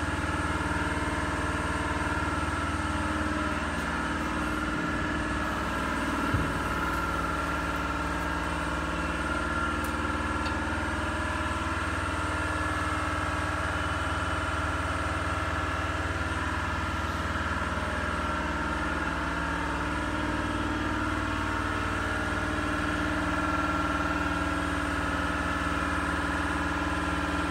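NikMann TF-v63 automatic edgebander running, its motors giving a steady low hum under a steady high whine. A single brief knock comes about six seconds in.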